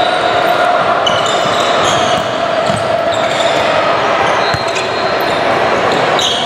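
Indoor basketball game sounds: a ball bouncing on the court and sneakers squeaking several times, with indistinct voices from players and spectators in the echoing gym.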